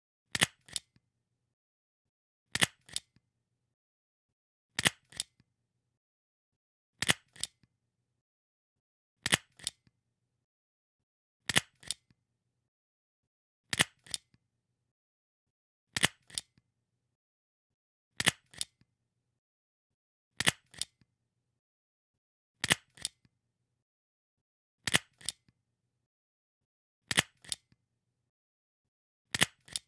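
Stapler pressed again and again, about once every two and a quarter seconds; each press is a sharp click followed by one or two fainter clicks.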